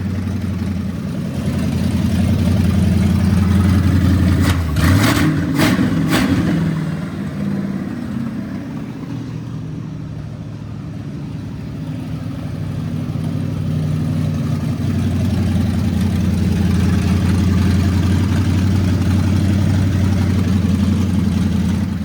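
7.5-liter V8 truck engine running rough just after its first start, its speed rising and falling, with a few sharp cracks around five seconds in. It still needs tuning.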